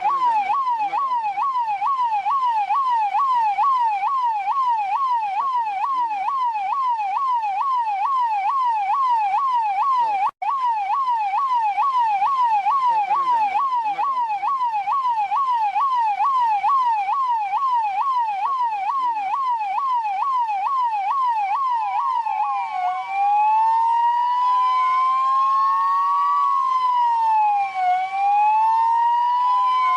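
Russian police car siren in a fast yelp, its pitch sweeping up and down a little over twice a second, with a brief dropout about ten seconds in. About 22 seconds in it switches to a slower wail, rising and falling every couple of seconds.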